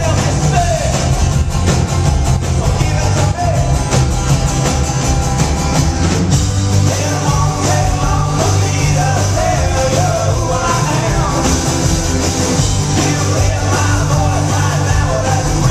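A live folk-rock band playing loud and steady, with a sung vocal line over banjo, acoustic guitar, cello, electric bass and drums, recorded from the audience on a small pocket camera.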